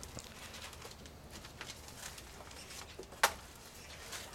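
Steel trowels scraping and smearing adhesive mortar onto a window reveal in light, irregular strokes. One sharp knock about three seconds in.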